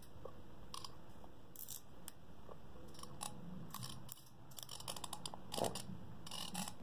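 Small scattered clicks and light ratcheting from a Shimano baitrunner spinning reel being handled and adjusted, with a quicker run of clicks about five seconds in.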